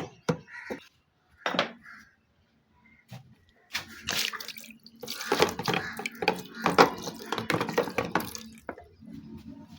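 Water splashing and dripping, as at a sink, in irregular bursts: brief splashes at the start, a pause, then a busy stretch of splashing through the middle that fades near the end.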